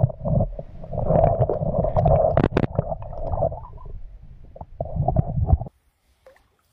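Muffled rumbling and knocking of stream water moving around an AKASO Brave 7 action camera held underwater on a rod-mounted float, heard through its waterproof housing. It cuts off suddenly near the end as the camera comes out of the water.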